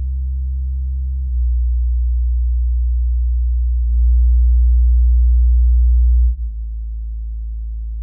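Edifier R1700BT bookshelf speakers playing a bass test: steady low sine-wave tones, deep hums with faint overtones, changing in steps a little over a second in and about four seconds in, then dropping quieter just past six seconds.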